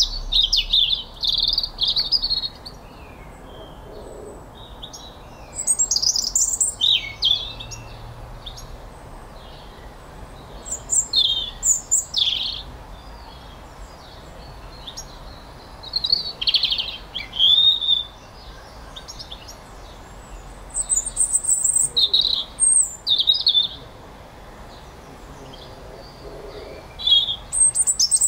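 A songbird singing short, quick phrases of high notes, about one phrase every five seconds, over a faint steady background noise.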